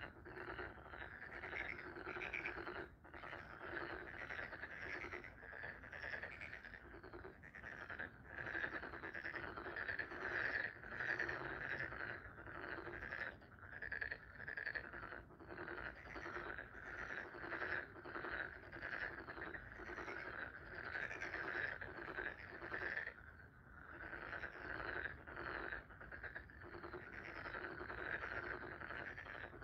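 A chorus of frogs croaking, many short calls overlapping in quick, uneven pulses without a break.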